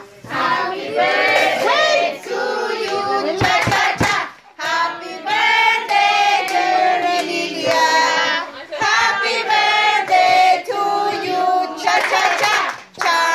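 A group of adults and children singing a birthday song together, with some hand clapping.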